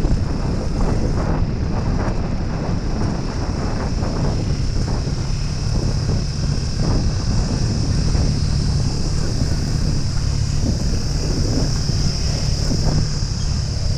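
Wind buffeting the microphone on a Suzuki Gixxer 155 under way, over the steady drone of its single-cylinder engine. Tyres rattle over a rough gravel surface, with frequent small knocks and jolts.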